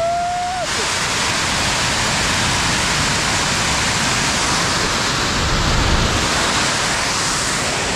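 Geyser steam vent hissing in a loud, steady, deafening jet. A brief pitched tone sounds over it within the first second.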